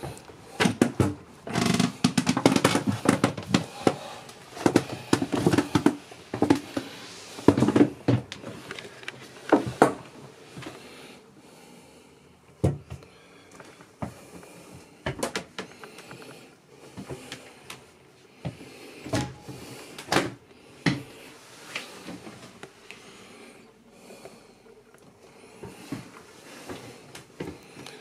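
Irregular knocks, bumps and rubbing of someone moving about inside a small boat cabin, with the sound of the close, small room. The noises are busiest in the first ten seconds and scattered after that.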